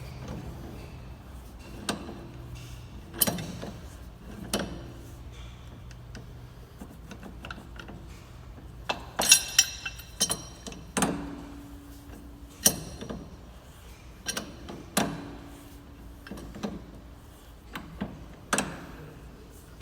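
Pipe wrench clanking against a hydraulic cylinder's steel gland nut as it is fitted and tightened: about a dozen irregular metal knocks and clinks, some ringing briefly, with a quick run of sharper clinks about halfway through.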